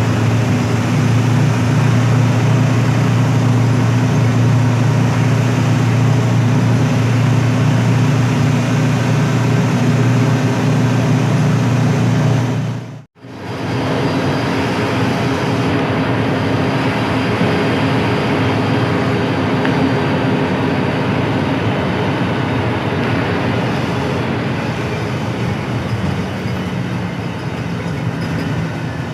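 Diesel engine and road noise of a front-engine Hino AK8 bus underway: a steady, loud low hum. It drops out for an instant about thirteen seconds in, then goes on with the deep engine tone weaker.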